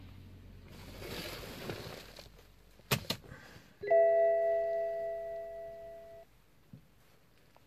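Rustling about a second in, two sharp clicks around three seconds, then a single loud electronic chime that rings for about two seconds and fades away.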